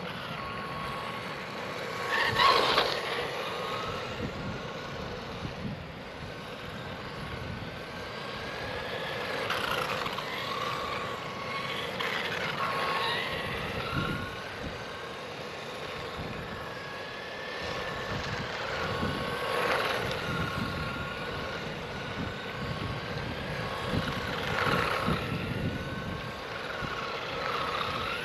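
Electric motor of a Haiboxing 903 1:12-scale RC monster truck whining, its pitch rising and falling as the throttle is worked. A few louder bursts stand out, the loudest about two and a half seconds in.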